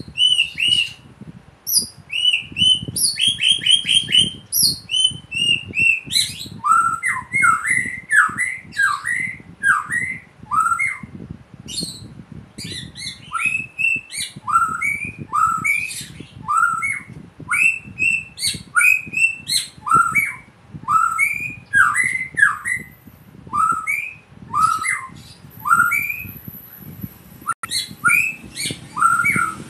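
Caged white-rumped shama singing, its song filled with phrases copied from a samyong. It opens with high, clear whistled notes, then from about six seconds in keeps up a long series of short swooping whistles, roughly one or two a second, with sharp high chips between them.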